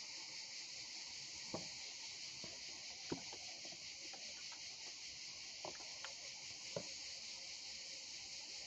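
A smartphone being handled and repositioned: a few faint, short knocks and rubs scattered through a steady high hiss.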